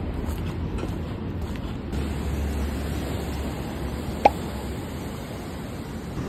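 Steady outdoor noise on a walk by the sea: a low rumble with hiss, like wind on the microphone. One brief sharp blip comes about four seconds in.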